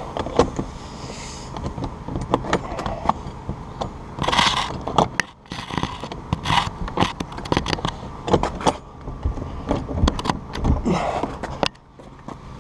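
Steel bolt cutters worked against a garage-door padlock hasp, giving irregular metallic clicks, knocks and scrapes as the jaws are set and squeezed without cutting through, with a few louder scraping bursts.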